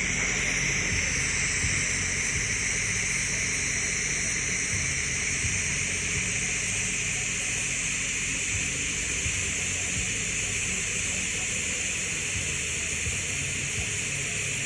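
TIG welding arc burning steadily on steel pipe while a stringer bead is run: an even hiss with a low hum beneath.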